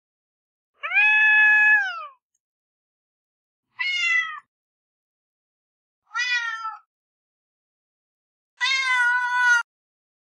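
Domestic cat meowing four times, each meow separate with silence between. The first is the longest, held level and then sliding down in pitch at its end.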